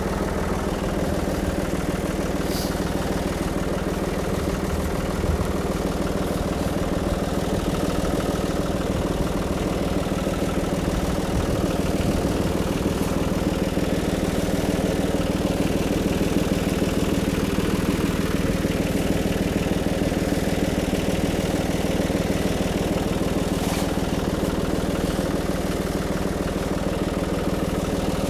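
John Deere 5065E tractor's diesel engine idling steadily.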